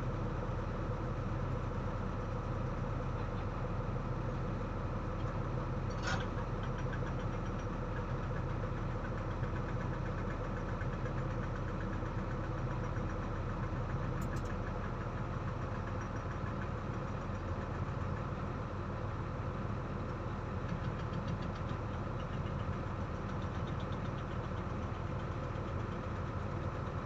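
A heavy diesel engine running steadily at a low, even speed, with one short click about six seconds in.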